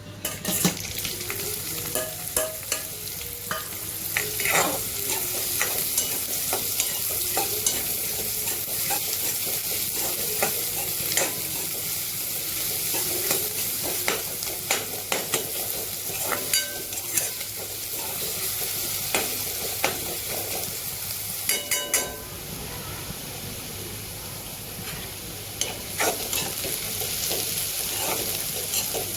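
Food sizzling as it fries in a pan, with a spoon stirring and clinking and scraping against the pan many times.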